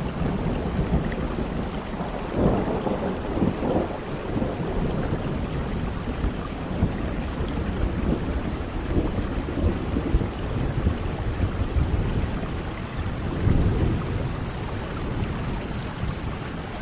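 Steady rain falling, with low rolls of thunder rumbling through it, strongest a few seconds in and again near the end.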